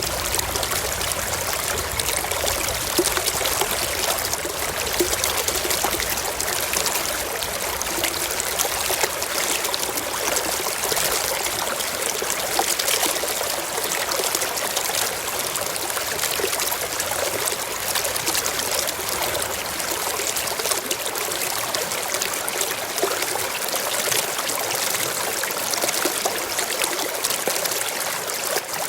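Waterfall: water cascading steadily.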